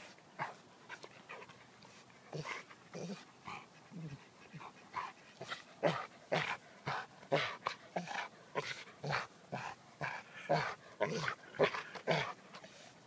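Young black Labrador retriever making a quick series of short vocal noises with a toy held in its mouth, playful "talking". The noises grow louder and come faster from about halfway through.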